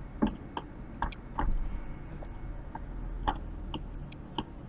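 Computer mouse clicking, about eight short, sharp clicks at irregular intervals over a low steady hum.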